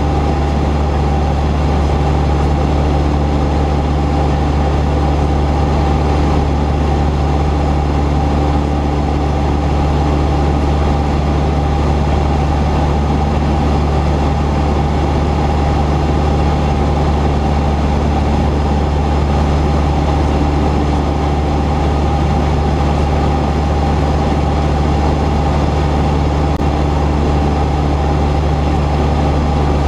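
Cessna 172's piston engine and propeller running steadily, a constant low drone with a steady higher tone over it.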